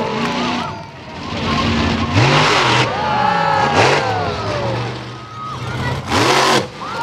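Monster truck engine revving hard, its pitch climbing and dropping several times, with loud harsh bursts of power about two seconds in, near four seconds and around six seconds.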